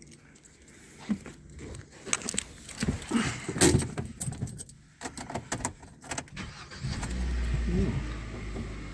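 Car keys jangling and handling clicks, then about seven seconds in the Hyundai Solaris's 1.4-litre petrol engine starts cold and runs with a steady low hum.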